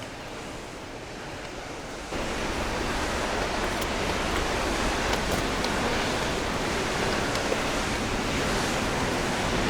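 Waterfall rushing: a steady, even noise of falling water that turns abruptly louder about two seconds in.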